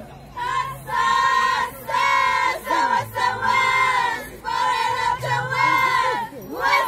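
A group of high voices singing or chanting in unison, in held phrases about a second long with short breaks between them.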